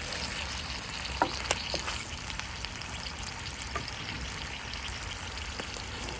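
Chicken frying in hot oil in a karahi: a steady sizzle full of small crackling pops, the crackle that shows the oil is hot and the chicken is searing. A few sharper clicks come about a second and a half in.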